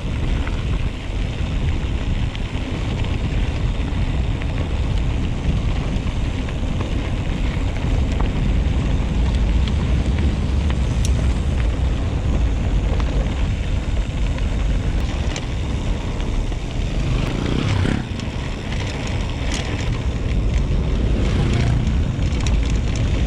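Steady rushing wind noise on the camera microphone as a mountain bike is ridden, with a low rumble and scattered clicks and rattles from the bike.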